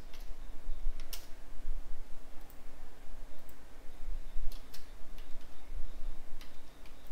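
Several separate computer mouse clicks at irregular intervals, over a steady low hum.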